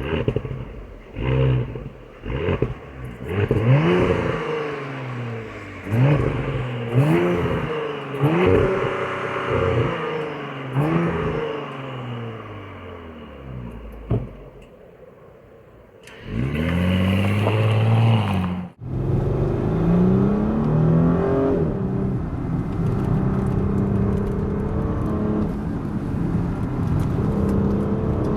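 Audi SQ5's 3.0 TFSI V6 engine revved again and again, its pitch rising and falling each time. After a short quieter spell it is revved hard once more, cuts off abruptly, then pulls loud and steady with its pitch slowly climbing.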